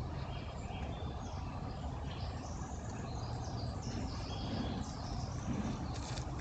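Birds chirping, a scatter of short high calls, over a steady low rumble.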